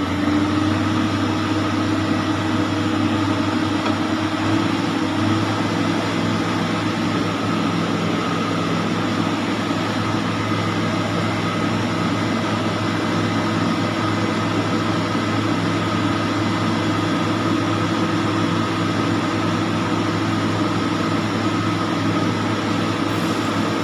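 Steady mechanical hum with an even rushing noise, unchanging throughout.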